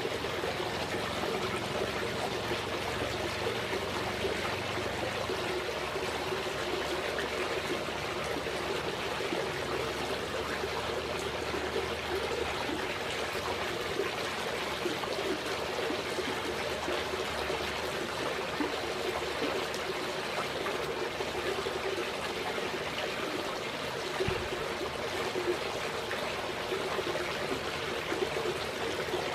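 Running water trickling and splashing steadily, without a break.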